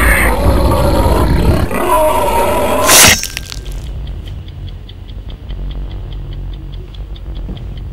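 Horror-trailer sound design: a loud, swelling rumble with wavering tones ends in a sharp crash about three seconds in. It then drops to a low hum with a steady fast ticking, about six ticks a second.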